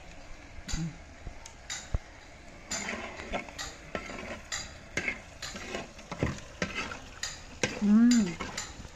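A spoon stirring and scraping chicken pieces in a clay pot, in irregular strokes that come more often in the second half, over the faint sizzle of the chicken frying in its masala.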